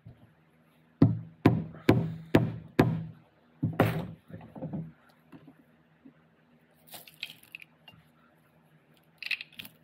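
A run of six sharp knocks, about half a second apart, on the aluminium case of an NP242 transfer case as its cover is worked loose. Softer scraping and clinking of metal parts follow near the end.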